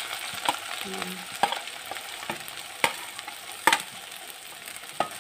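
Shredded vegetables sizzling and frying in hot oil in a steel kadai as they are scraped in from a plate, with the slotted spatula knocking and clicking against plate and pan every second or so.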